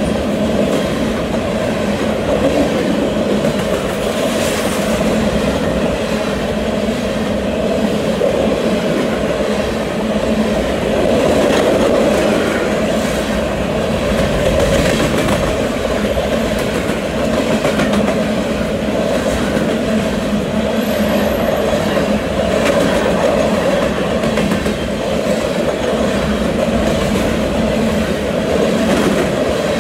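Freight train of covered hopper cars rolling past at close range: a steady rumble with wheel clatter from the cars' trucks passing over the rail.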